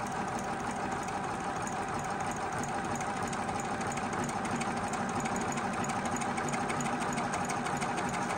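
Juki HZL-009 computerized sewing machine running steadily while it stitches out alphabet lettering: an even motor hum with a fast, regular ticking of the needle.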